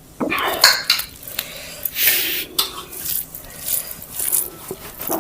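Dishes and tableware clinking and scraping, with several sharp knocks as bowls and a plate are handled.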